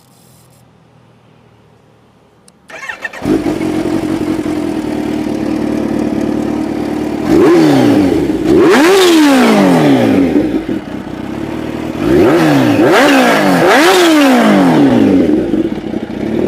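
A vehicle engine starts about three seconds in, after a moment of quiet, and settles into a steady idle. It is then revved four times in two pairs of quick throttle blips, each rising and falling in pitch.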